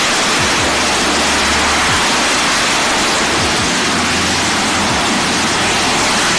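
AV-8B Harrier II's Rolls-Royce Pegasus turbofan at hover power as the jet descends for a vertical landing: a loud, steady rushing roar of jet exhaust.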